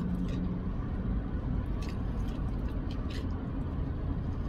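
Steady low rumble of a car idling, heard inside the cabin, with a few faint clicks of chewing on a soft dinner roll.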